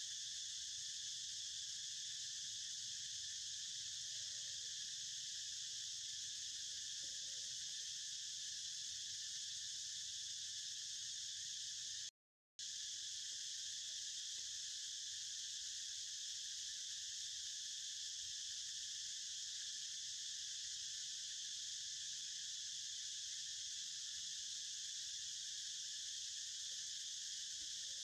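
Steady, high-pitched chorus of insects in the trees, a continuous shrill buzz that cuts out for half a second about twelve seconds in.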